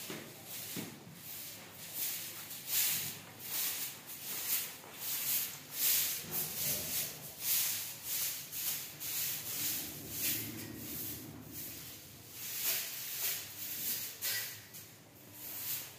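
Soft grass broom sweeping a stone-tiled floor: a run of brushing swishes, about one or two a second and uneven.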